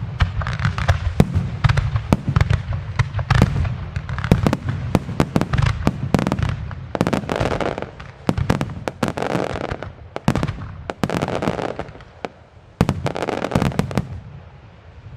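Fireworks display: aerial shells and salutes bursting in a dense, rapid run of sharp bangs over a low rumble, thinning out near the end.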